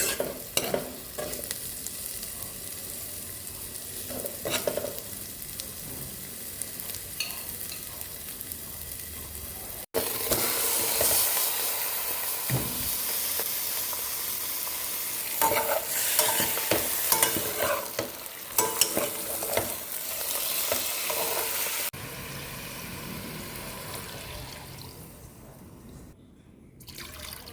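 Food sizzling in a frying pan while a utensil stirs it, with scattered clicks and scrapes. The sizzle gets louder abruptly about ten seconds in, drops back about twenty-two seconds in, and fades near the end.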